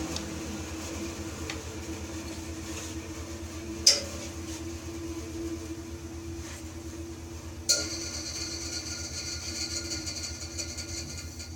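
Bandsaw running with a steady motor hum, with two sharp clinks about four and eight seconds in; after the second a high ringing layer rides over the hum.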